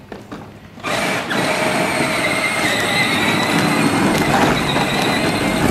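Battery-powered John Deere Gator ride-on toy driving: its electric motors and gearboxes whine steadily and its plastic wheels rumble on asphalt, starting about a second in.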